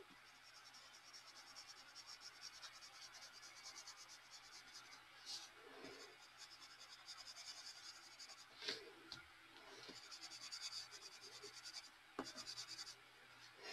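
Colored pencil scratching faintly on paper in rapid back-and-forth shading strokes, in two spells with a pause between. A single light knock comes about two-thirds of the way through.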